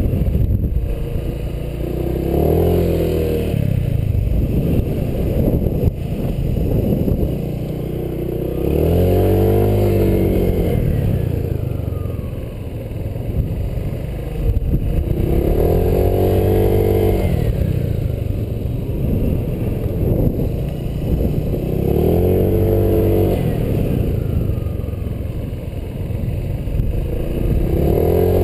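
Honda PCX125 scooter's single-cylinder engine revving up and easing off in repeated swells, about every six or seven seconds, as the scooter is accelerated out of one tight turn and slowed into the next.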